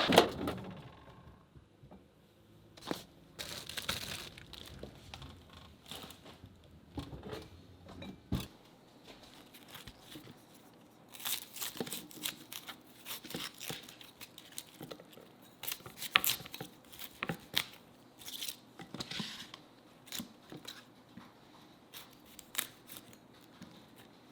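Food preparation by hand: irregular crinkling and tearing sounds, with scattered clicks and knocks.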